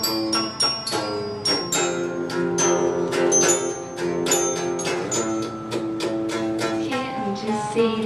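Live band music led by an electric guitar picking a quick run of notes, with longer held melody notes over it.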